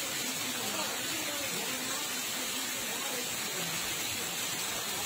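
Steady hiss of moving floodwater, with faint voices murmuring underneath.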